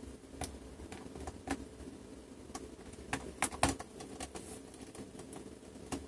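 Hands handling the underside of a laptop, making a scattering of light clicks and taps, the loudest a quick cluster a little past halfway, over a faint steady hum.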